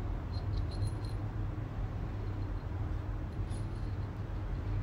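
Faint small metallic clicks from a Nord-Lock washer pair being handled and slid onto a long steel bolt in gloved hands, several in the first second and one more later, over a steady low background hum.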